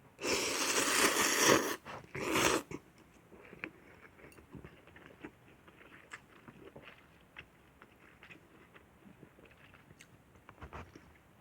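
A person slurping instant noodles: a long noisy slurp lasting about a second and a half, a shorter one just after, then quiet chewing with small wet clicks.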